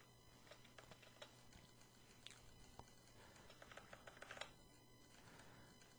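Near silence with faint, scattered clicks of a computer keyboard and mouse, a few quicker ones bunched together about four seconds in.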